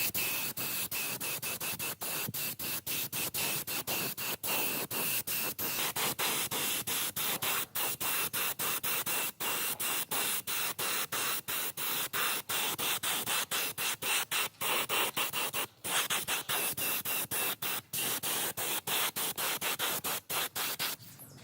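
Compressed-air spray hissing steadily, broken by many short gaps, with a faint high whistle in the first part. It stops suddenly just before the end.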